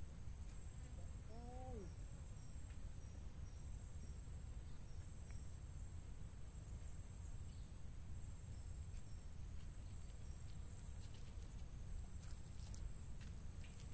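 Outdoor ambience: a steady high-pitched insect drone over a constant low rumble. One short call rises and falls in pitch about a second and a half in.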